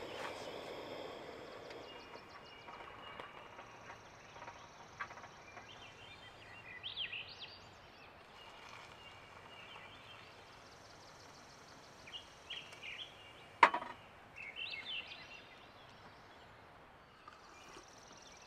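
Faint outdoor ambience with small birds chirping now and then in short, high calls, and one sharp click about three-quarters of the way through.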